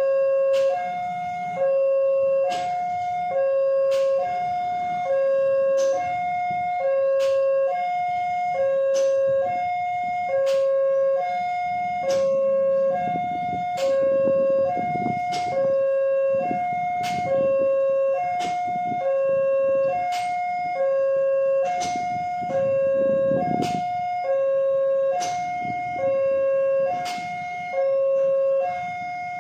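Railway level-crossing warning alarm sounding: an electronic two-tone signal alternating between a higher and a lower note about once a second, with a click at each change, warning that a train is approaching. A faint low rumble swells under it now and then.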